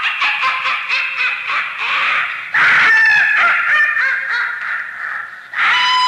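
Spooky sound-effect recording of a dense crowd of animal-like calls, many short cries overlapping and rising and falling in pitch, high in the register. The din swells in sudden loud surges, once about midway and again near the end.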